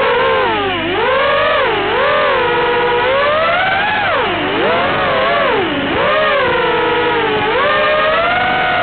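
FPV racing quadcopter's brushless motors whining, the pitch rising and falling constantly with the throttle.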